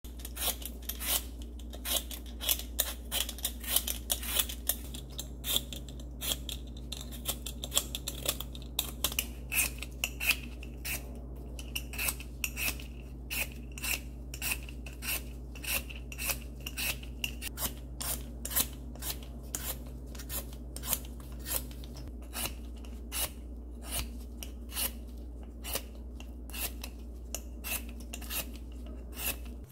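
Vegetable peeler scraping the skin off a raw red-skinned potato in quick repeated rasping strokes, about two a second.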